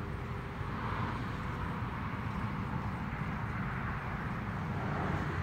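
Distant engine rumble, steady and slowly growing louder.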